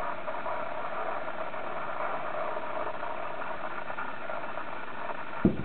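Steady hum of an idling car engine, with one short, deep boom of a distant aerial firework bursting near the end.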